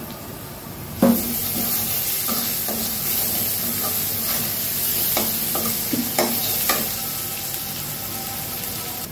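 Sliced onions and ginger-garlic paste sizzling in hot oil in a metal karahi. The sizzle starts suddenly about a second in. A metal spatula scrapes and clinks against the pan several times as the onions are stirred.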